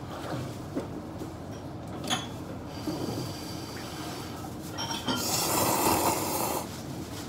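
A person slurping ramen noodles: one long, loud, hissing slurp about five seconds in, lasting over a second. A short sharp click about two seconds in.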